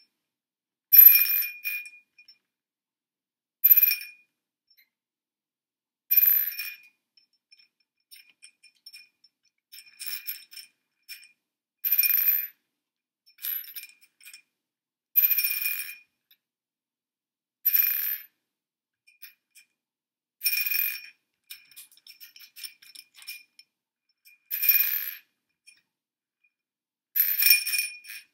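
Marbles dropped one at a time into a glass bowl, each landing with a short ringing clink. About a dozen clinks come two to three seconds apart.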